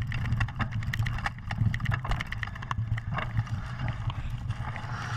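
Mountain bike running fast down a dirt forest trail, clattering and rattling with a rapid, irregular stream of knocks and clicks over a steady low rumble.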